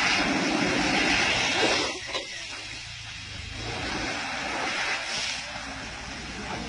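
Water jets spraying over an elephant and spattering on the ground, a steady hiss. It is louder for about the first two seconds, then drops to a quieter hiss.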